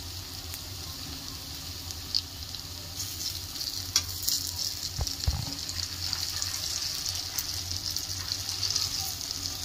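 Dahi bara fritters deep-frying in hot oil in an aluminium kadai: a steady sizzle that grows a little stronger about three seconds in. A couple of light knocks come around the middle.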